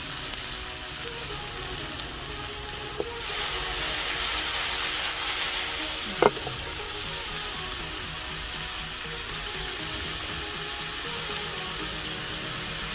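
Sliced red onions sizzling in a frying pan as they caramelise with brown sugar. The sizzle grows louder about three seconds in, and there is a single sharp knock about six seconds in.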